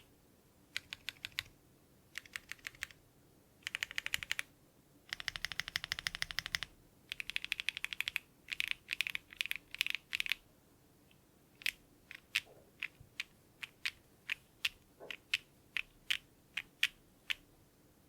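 Keystrokes on a foamless custom mechanical keyboard with an FR4 plate, stock HMX Clouds switches, Owlstabs stabilizers and PBT keycaps. First the stabilized keys are pressed in short bursts, then the G, H and J keys are tapped rapidly for about three seconds, and from about eleven seconds in single keystrokes come roughly every half second during a flex test.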